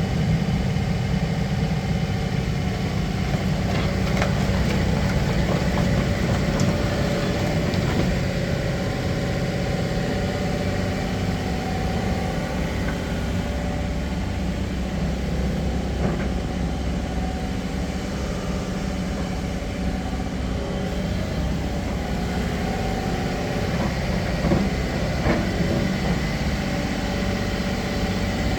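Doosan DX140LCR-3 excavator's diesel engine running at a steady speed, with a few short knocks about halfway through and again near the end.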